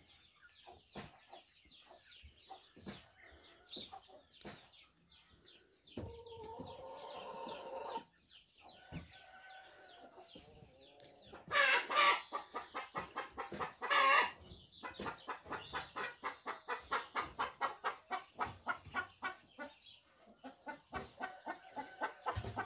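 A flock of hens and young chickens clucking while they feed, with loud bursts of rapid clucking about twelve and fourteen seconds in, followed by steady rhythmic clucking at about three or four a second.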